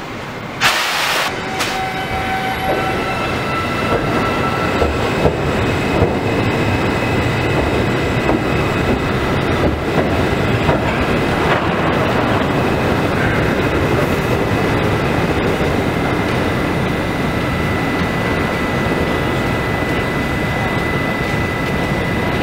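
New York City subway train running through the station, with a steady high whine and wheels clicking over rail joints. A short sharp hiss of air comes about a second in.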